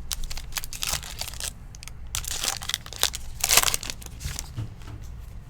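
Trading card pack wrapper crinkling and crackling in the hands, in irregular bursts, with louder crinkles about two and three and a half seconds in.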